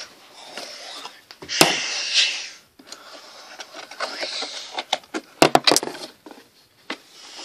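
Plastic toy figures and dollhouse pieces being handled close up: rustling, with a sharp knock about a second and a half in and a quick run of clicks and knocks a little past halfway.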